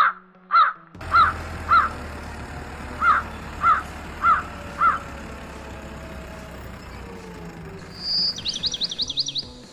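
A bird cawing eight times in two runs of four, with a steady low hum underneath. Near the end a small bird gives a high whistle followed by a rapid warbling trill.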